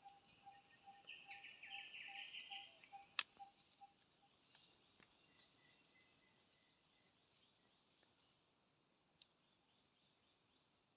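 Faint forest insect chorus at dusk: steady high shrilling of crickets and other insects. For the first few seconds a short note repeats about three times a second and chirping bursts come and go, and there is a single sharp click about three seconds in.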